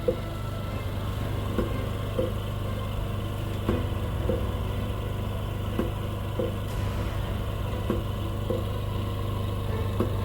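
Prototype emergency mechanical ventilator running: a steady motor hum with sharp clicks that come in pairs, the second about half a second after the first, repeating about every two seconds.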